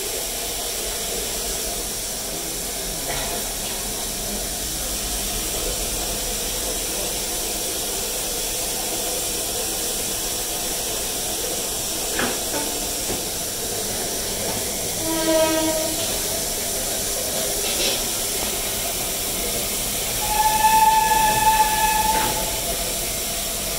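Class B1a No. 251 coal-fired steam locomotive hissing steadily with escaping steam. A short whistle sounds about fifteen seconds in, and a louder whistle blast of about a second and a half comes near the end.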